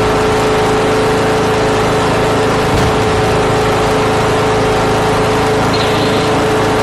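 An engine or motor running steadily at a constant speed, with a strong held hum over dense mechanical noise.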